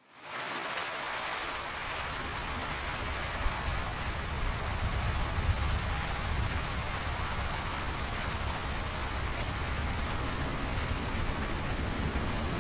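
Steady rain falling on surfaces, an even hiss with scattered individual drop impacts, fading in over the first half second.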